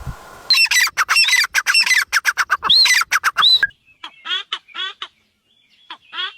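Bird calls: a quick run of short, sharp calls for about three seconds, then, after a short pause, a few spaced calls of a different kind.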